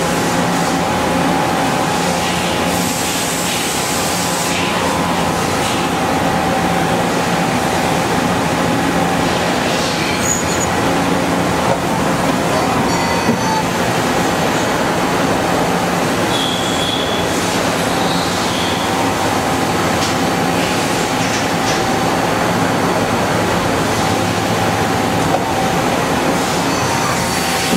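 Mazak 18MS Mark II CNC opposed-spindle turning and milling center running, a steady mechanical whir with a few held tones and a brief high whine about sixteen seconds in.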